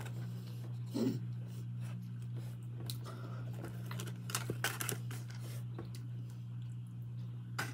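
Cardboard fast-food boxes being handled, lifted and set down on a table: a few light rustles and taps over a steady low hum.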